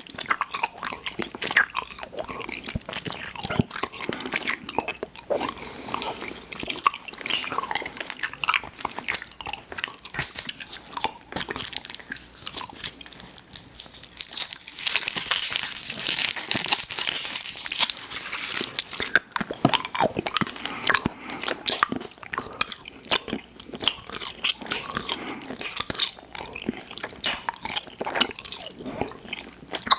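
Close-miked chewing and biting of candy: a steady stream of crunches and wet mouth clicks, with a busier, hissier stretch in the middle.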